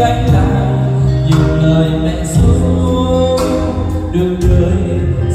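Music: a song with a singing voice over instruments, with a steady beat.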